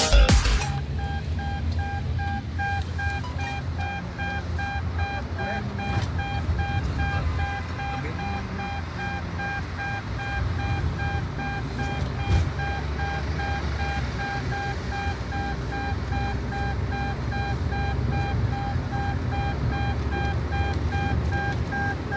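An electronic warning beep, repeating evenly and rapidly at one pitch, over a steady low rumble of vehicle noise.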